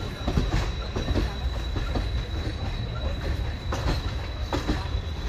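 Wheels of a passenger coach on the 20813 Puri–Jodhpur Superfast Express running along the track, heard from on board. A steady low rumble carries a few clacks over rail joints, with two pairs of quick double knocks in the second half. A thin steady high tone runs under it all.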